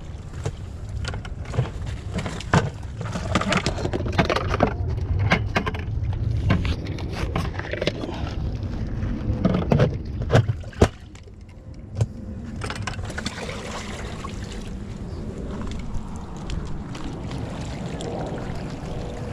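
Handling noise from a body-worn camera: scattered clicks and knocks of fishing gear, a bucket and footsteps on a rocky shore, over a steady low rumble of wind on the microphone. About eleven seconds in there is one sharper, louder knock.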